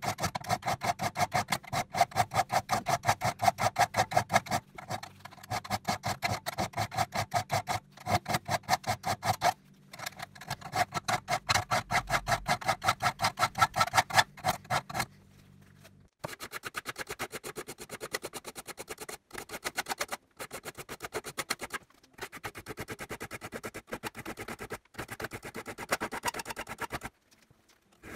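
Steel file rasping across the teeth of a crosscut saw blade in fast, even, back-and-forth strokes, with a few short pauses. After about halfway the strokes turn quieter and thinner.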